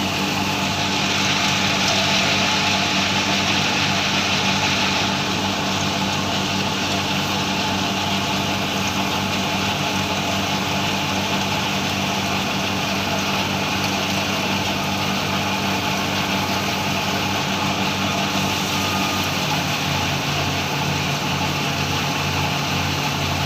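A large machine engine running steadily. For the first few seconds there is a brighter hiss on top. Near the end its tone shifts and a pulsing beat of about three a second sets in.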